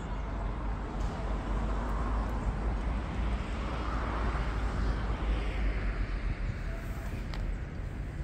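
City street traffic noise: a steady low rumble with a vehicle passing, its sound swelling about four to five seconds in and then fading.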